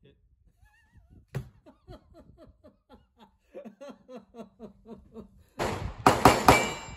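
A person chuckling in a run of short, quick bursts, after a single sharp click. Near the end a sudden loud rush of noise with several sharp cracks comes in and is the loudest sound.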